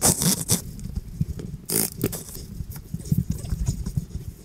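Rustling and knocking on the microphone of a jostled helmet-mounted action camera, with two short hissing bursts of noise: one at the start and one about two seconds in.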